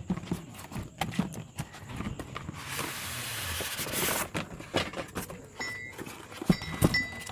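Fuel pressure gauge kit being unpacked by hand: a string of small clicks and knocks from parts and packaging being handled, with a dense rustle of packaging for about a second and a half in the middle.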